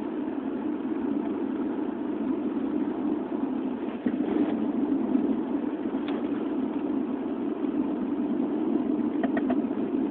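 A car being driven, with steady road and running noise heard from inside the cabin and a few light knocks about four, six and nine seconds in. This car knocks when the throttle is released and has a vibration at the front right wheel that goes away when turning right.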